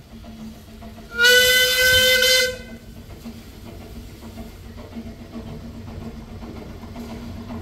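Steam whistle of Talyllyn Railway narrow-gauge locomotive No. 2 'Dolgoch', an 1866 0-4-0 well tank, giving one loud, steady blast about a second in that lasts about a second and a half. After it the approaching train is heard only faintly.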